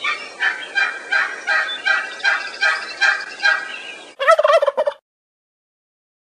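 Bird calls: a run of about ten calls, roughly three a second, then a shorter warbling call that cuts off suddenly about five seconds in.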